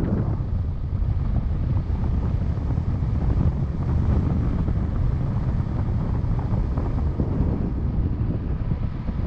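Airflow buffeting an action camera's microphone during paraglider flight: a steady, loud, low rushing of wind.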